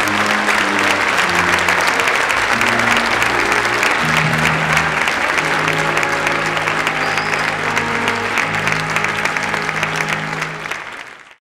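An audience applauding, a dense crackle of many hands clapping, over music with low held notes. It fades out near the end.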